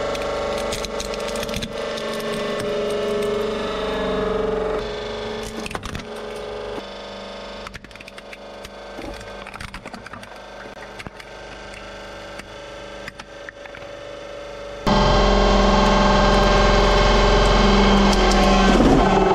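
A hydraulic press crushing toys: plastic cracking and snapping as a toy car and then a stack of toy blocks give way under the ram, over the steady running of the press. About fifteen seconds in, a much louder steady hum sets in as the ram squeezes a bag of jelly candy.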